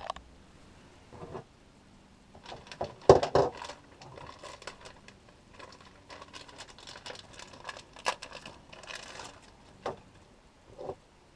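A water pipe end being cleaned up by hand for a push-fit connector: irregular scraping and rubbing with scattered clicks and knocks, the loudest knock about three seconds in.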